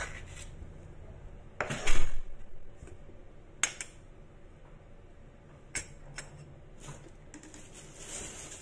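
A metal spoon scraping the white pith and seeds out of a halved bitter gourd and knocking against a wooden cutting board, with one loud knock about two seconds in and a few lighter taps after it.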